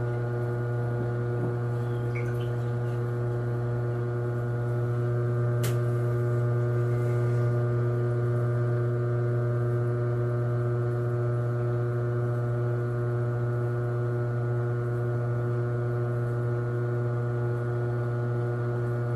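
Electric potter's wheel motor running with a steady hum while clay is thrown on the spinning wheel head. A single short click about six seconds in.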